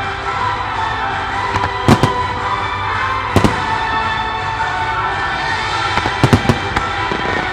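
Aerial firework shells bursting, with sharp bangs about two seconds in and three and a half seconds in, and a quick run of several near six seconds, over steady music.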